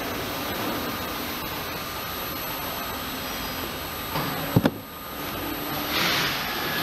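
Steam shrink-sleeve tunnel hissing steadily, with two sharp knocks about four and a half seconds in. The hiss then dips briefly and swells again near the end.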